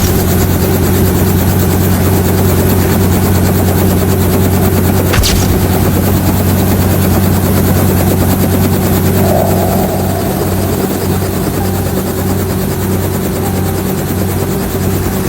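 Helicopter running steadily: loud rotor and engine noise over a low, even hum. A sharp click about five seconds in, and the noise drops slightly in loudness about ten seconds in.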